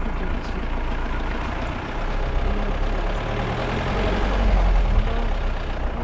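Car on the move: a steady low rumble of engine and road noise, swelling briefly about four seconds in.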